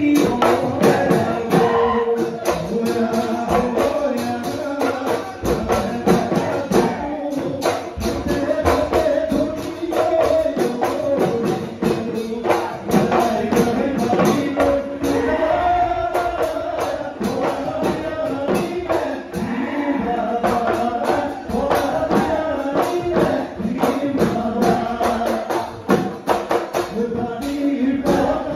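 Bihu husori music: Assamese dhol drums beaten in a fast, driving rhythm, with a group of men singing over it and a metallic jingling percussion.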